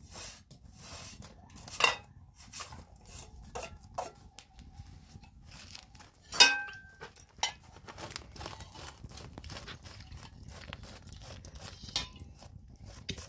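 Light clicks and taps with a few clinks of metal dishes. The loudest is a sharp clink about six and a half seconds in that rings briefly.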